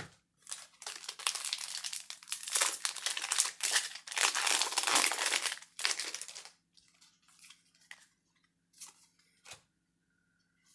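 Foil booster pack wrapper of Magic: The Gathering cards being torn open and crinkled for about six seconds, then a few faint rustles and taps as the cards are handled.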